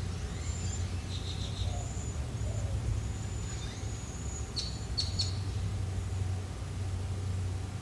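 Birds chirping and whistling in short high calls, with a quick run of three chirps about five seconds in, over a steady low hum.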